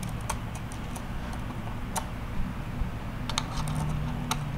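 Light, irregular clicks and ticks of hands handling and seating the ESC power-lead terminals on the center distribution board of a DJI Matrice 600 drone, over a faint low hum.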